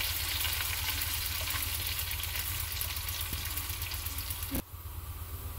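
Chopped garlic, ginger and chilli flakes frying in hot oil in a wok, a steady crackling sizzle. The sizzle drops off suddenly near the end and carries on more quietly.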